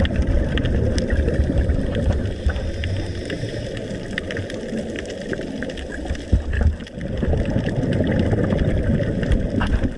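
Underwater sound heard through a dive camera's housing: a steady low bubbling rumble of water and divers' bubbles, with scattered faint clicks, easing briefly about two-thirds of the way through.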